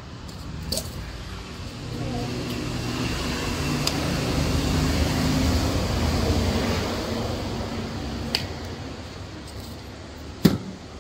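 A motor vehicle passing by, its engine and road noise swelling over several seconds and then fading. A few light clicks and one sharp knock near the end.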